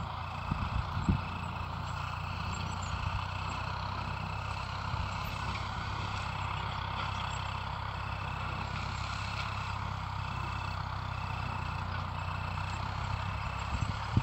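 A farm machine's engine running steadily with a low, even hum, and a faint high-pitched pulse repeating about one and a half times a second. A few low knocks sound in the first second.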